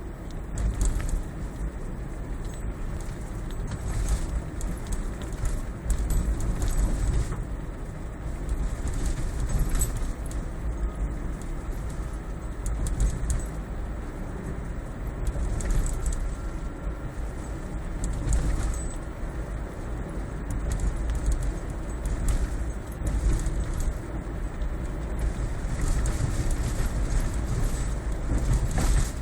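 Toyota Prius cabin on the move, a steady low road rumble with irregular light clicking and rattling from behind the dashboard below the instrument cluster: the abnormal noise the owner is recording.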